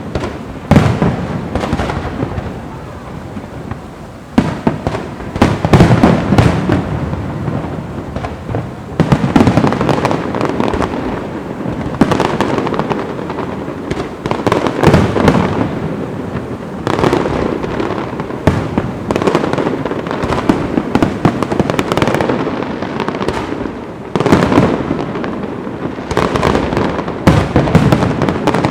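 Fireworks going off without pause: many bangs and crackles overlapping, with the loudest bursts coming every few seconds.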